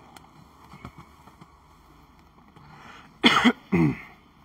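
A person coughing twice in quick succession, loud and short, about three seconds in, after a few faint clicks and rustles.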